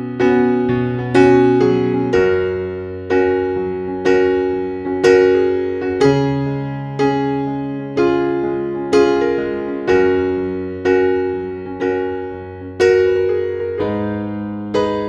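Background music: slow piano with a single note or chord struck about once a second, each fading out, over held bass notes that change every few seconds.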